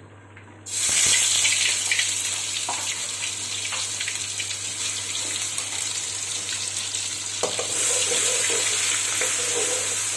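Ground onion paste frying in hot oil in a pan: a loud sizzle starts suddenly under a second in and keeps going steadily, with a few light knocks.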